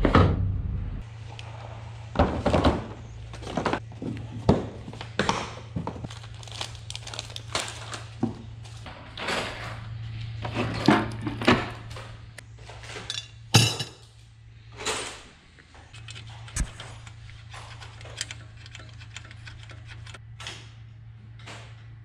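Irregular knocks, clanks and clicks of hand tools and metal parts being handled, over a steady low hum. The sharpest knock comes about halfway through.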